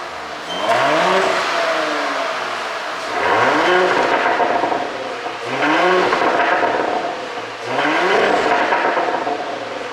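2023 Porsche Cayenne 3.0T's turbocharged V6 free-revving four times, each rev rising quickly and then falling away over about two seconds. The exhaust flaps are held open and the engine is ECU-tuned for overrun pops.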